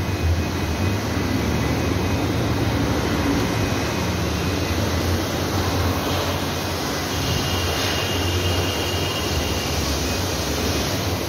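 Steady din of a truck chassis assembly hall: a constant low machinery hum under a broad noise. A faint high whine comes in about seven seconds in and fades after a couple of seconds.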